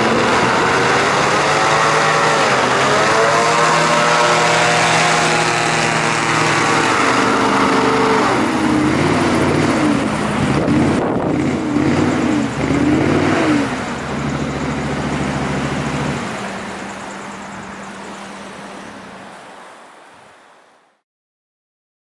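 Christy 6146 FC hovercraft running hard, its engine and ducted fan loud. The pitch rises and falls several times, then the sound fades away near the end.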